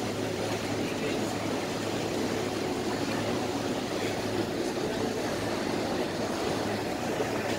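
Steady drone of a ferry's engine under way, a constant low hum with an even rushing noise over it.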